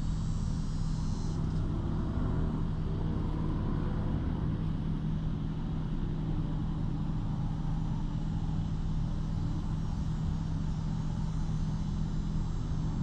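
Steady low mechanical hum at a constant pitch over a broad rumble, the drone of a motor running nearby, unchanging throughout; a faint high hiss fades out about a second and a half in.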